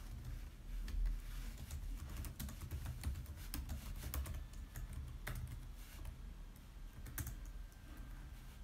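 Typing: irregular light key clicks, several in quick runs with short pauses between, over a steady low hum.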